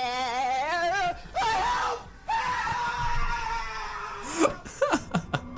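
A high wailing voice held in long notes with a wavering pitch, broken by short pauses, followed by a few sharp clicks near the end.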